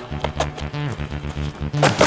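Background action music with held notes over a pulsing bass line, and a single short click about half a second in.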